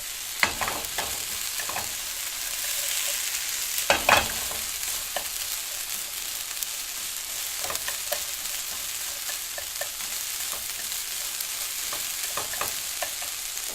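Onions sizzling in a hot pan with a steady high hiss, stirred now and then with a utensil that knocks and scrapes against the pan, loudest about four seconds in.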